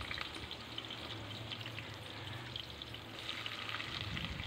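Sliced onions sizzling in hot oil in an aluminium pot: a steady frying hiss with scattered small crackles, the start of frying them to light brown.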